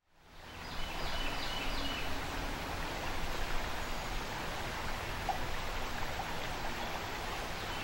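Fast river water rushing over a riffle, a steady even rush that fades in over the first second. A short run of high chirps sounds near the start.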